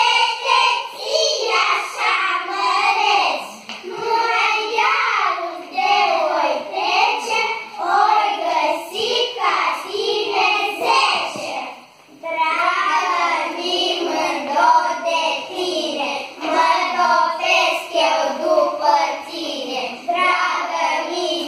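Children's voices singing a song, pausing briefly about twelve seconds in.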